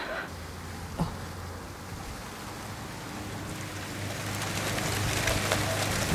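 Wind blowing in a gust, an even rushing that builds and grows louder toward the end, with one sharp knock about a second in.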